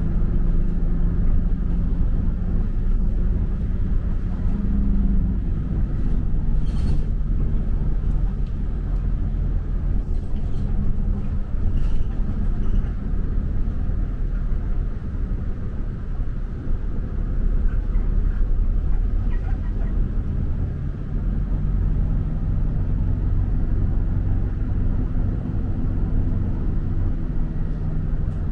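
Motor vehicle traffic: a steady low engine rumble with a hum that slowly rises and falls, and a few faint clicks.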